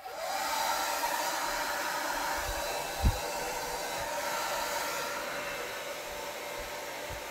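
Hair dryer switched on and running steadily: a loud rushing blast of air with a motor whine that rises briefly as it spins up. A brief low thump about three seconds in.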